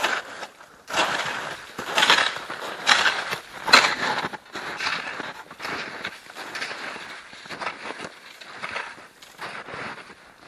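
Snow being shovelled and kicked onto a heap: a run of crunching scoops and scrapes, loudest over the first four seconds and softer after.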